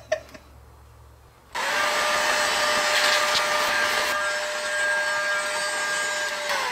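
Milwaukee heat gun switched on about a second and a half in, its fan blowing steadily with a constant whine. It is switched off near the end, and the whine falls in pitch as the fan spins down.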